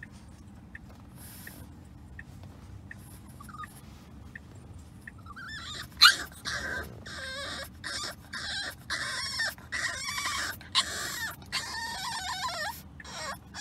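French bulldog puppy whining and whimpering in distress on a car ride. A few faint whimpers come first, then from about five seconds in a run of loud, high-pitched cries broken into many short bursts. The car's steady road rumble runs underneath, heard from inside the cabin.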